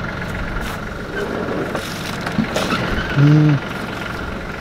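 An engine idling steadily, with a thin steady whine above it. About three seconds in, a short, loud, flat-pitched note sounds for under half a second.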